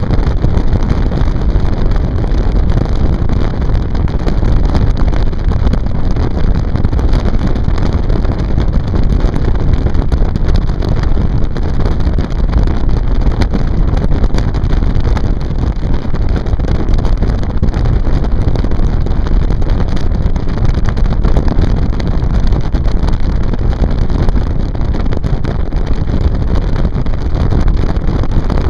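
Motorboat under way: a steady run of engine and water noise, with heavy wind buffeting on the microphone.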